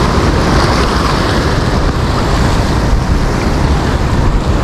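Ocean surf washing steadily onto the shore, with wind buffeting the microphone in low gusts.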